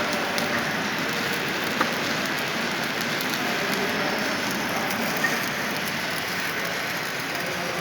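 Electric arc welding: a steady crackling hiss from the arc, with a couple of sharper pops.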